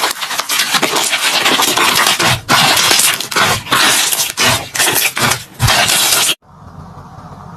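Slime being squeezed and worked by hand, making dense crackling and popping that cuts off suddenly about six seconds in.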